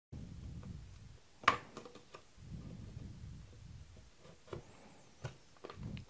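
Handling sounds of a DDR4 RAM stick being lined up and fitted into a motherboard's plastic memory slot: one sharp click about a second and a half in, then a few faint taps and light rubbing.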